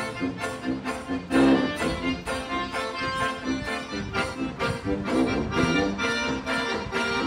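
Oompah band playing a polka: accordion melody over tuba bass and strummed banjo, on a steady beat of about two strokes a second. The music swells louder briefly about one and a half seconds in.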